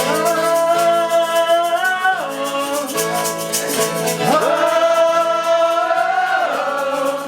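A voice sings two long held notes, the second sliding up into place, over a steady shaker rhythm and strummed guitar.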